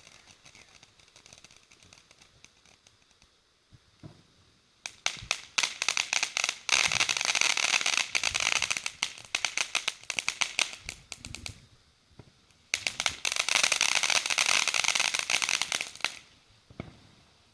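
Consumer fireworks crackling: two long stretches of dense, rapid crackles, the first starting about five seconds in and the second shortly after it dies down. A faint hiss comes before them.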